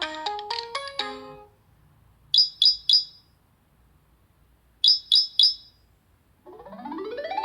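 Nokia 3 stock ringtones: a stepping electronic melody ends about a second in, then a tone of three quick high chirps plays twice, about two and a half seconds apart. Near the end a new tone begins as a rising sweep of notes.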